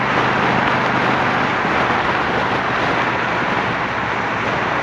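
Wind and road rush over the microphone on a motorcycle at highway speed, with the low steady drone of the Honda Shadow 750's V-twin through its Torbal 3-inch sport exhaust. The engine drone weakens under the wind about a second and a half in.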